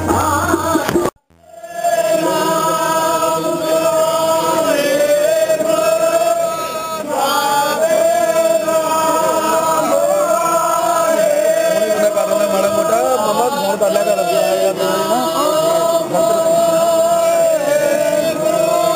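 A group of men's voices chanting together in unison, holding a long wavering tone with slides in pitch: Sikh devotees singing. It is preceded by the tail of a music track with tabla that cuts off about a second in.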